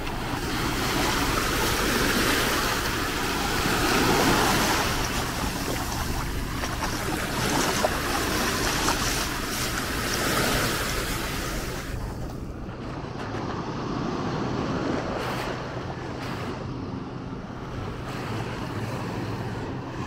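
Small Mediterranean waves breaking and washing up over sand and rocks at the water's edge, the surf swelling and easing every few seconds. About two-thirds of the way through the hiss of the surf turns softer and duller.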